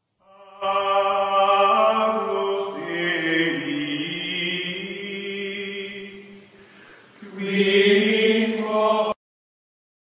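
Choral outro music: voices chanting long held notes in harmony. The sound dips low about six seconds in, swells again, then cuts off suddenly near the end.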